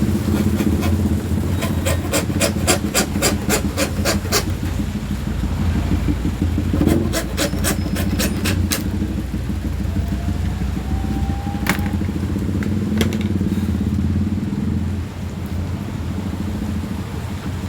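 Hand saw strokes cutting acrylic sheet, quick and rhythmic at about four a second, in a run for the first few seconds and again in a shorter run about seven seconds in. Under the strokes runs a steady low engine hum that drops a little near the end.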